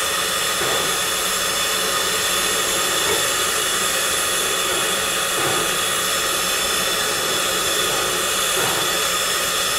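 Steady hiss of steam from a steam locomotive standing under steam, with several faint steady tones running through it.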